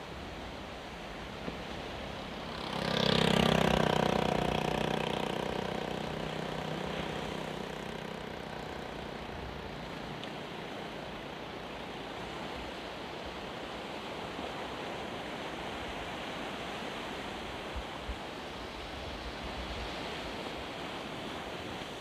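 Steady wash of breaking surf. About three seconds in, a motor vehicle's engine passes close by: its note comes up sharply, then fades away over several seconds.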